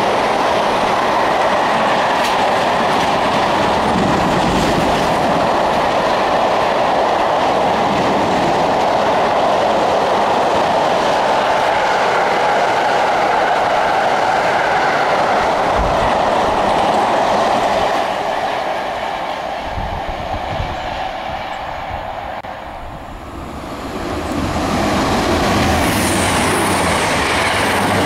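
Freight train of loaded car-carrier wagons passing close by, a steady rumble of wagon wheels on rails with clickety-clack over the rail joints. It fades after about eighteen seconds, and a second train, a passenger train, comes past near the end with a high whine.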